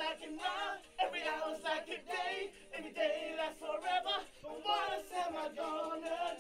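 Male voices singing a cappella together, with wavering held notes in short phrases.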